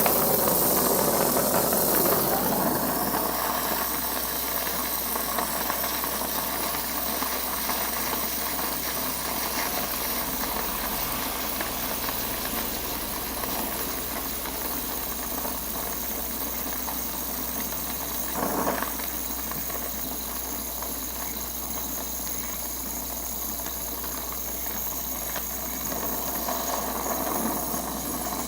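Oxy-acetylene torch flame hissing steadily as it heats a joint for silver soldering, the flame set with a small acetylene feather at its tip. It is loudest in the first couple of seconds, then eases a little, with one brief louder rush about two-thirds of the way through.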